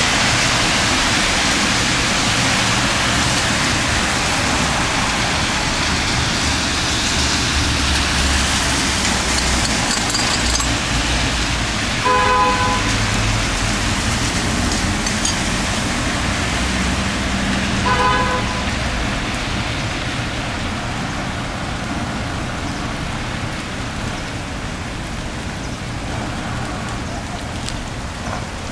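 Steady hiss of sleet falling, with traffic running on the wet street below. A car horn gives two short toots near the middle, about six seconds apart.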